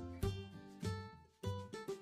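Instrumental background music with plucked strings, notes struck on a steady beat.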